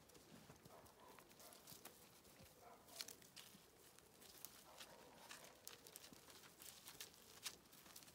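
Faint, irregular crunches and ticks of several dogs' paws shuffling on gravel and dry leaves, with leaves rustling.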